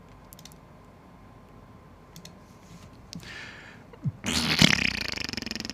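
Faint clicks over quiet room tone, then about four seconds in a loud, scratchy rubbing starts, with a fast, uneven level: a felt-tip marker scribbling on the paper of a workbook page.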